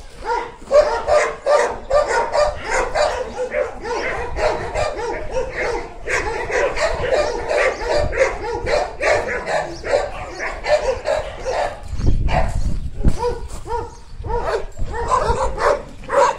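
Dogs barking over and over, a few short barks a second, with a brief low rumble about three-quarters of the way through.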